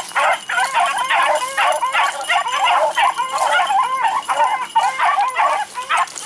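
A pack of beagles baying on a rabbit's track, several hounds giving voice at once in short, quick barks that overlap with hardly a pause.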